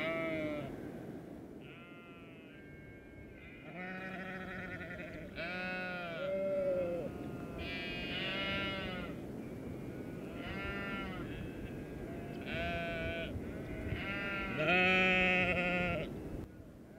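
Sheep bleating over and over, a dozen or so calls from several animals, some overlapping, the loudest near the end.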